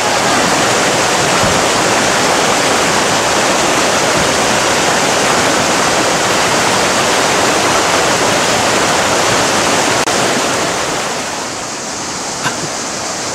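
River rapids rushing over rocks: a loud, steady whitewater noise that eases slightly about ten seconds in.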